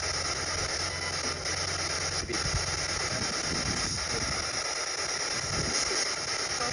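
Steady hiss of radio static from a spirit box scanning the radio band, with a low hum that fades out about two and a half seconds in.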